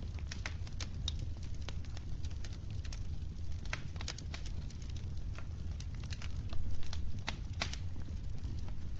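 Wood fire crackling in a fireplace: irregular sharp pops and snaps over a steady low rumble of the burning logs, briefly louder a little past halfway.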